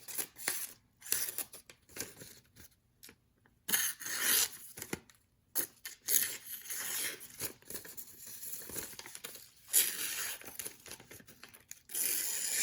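Freshly sharpened pocketknife blade cutting through paper as a sharpness test: short, irregular papery rasps and rustles with brief pauses.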